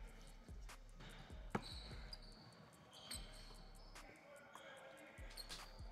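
Basketball bouncing on a hardwood gym floor: a few faint, irregular dribbles, with a few short high squeaks in between.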